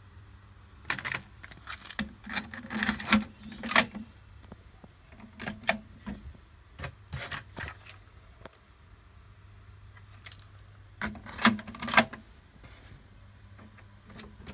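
Quick plastic clicks and rattles from handling a Denon DRW-850 double cassette deck's tape door and transport, coming in three bursts under a faint steady low hum.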